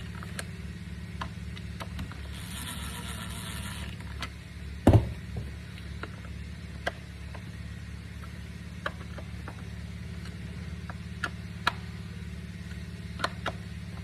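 Scattered small clicks and light knocks of a screwdriver and the plastic housing of a cordless stick vacuum being handled as screws are driven back in, with one louder knock about five seconds in and a short rasping scrape a few seconds in, over a steady low background hum.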